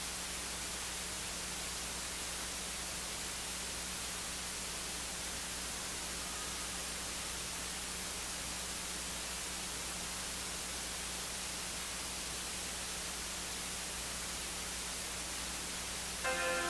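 Steady hiss with a low electrical hum, as from the church's microphone and sound system with no one speaking. About half a second before the end, instrumental music begins.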